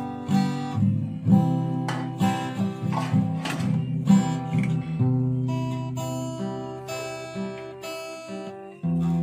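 Background music: a plucked, strummed guitar tune.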